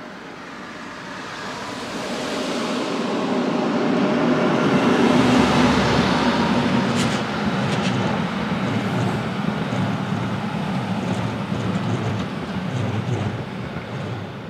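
Red Rhaetian Railway passenger train passing on the track: a steady rumble of wheels on rails grows to its loudest about five seconds in and then slowly fades away. A couple of sharp clicks from the wheels come near the middle.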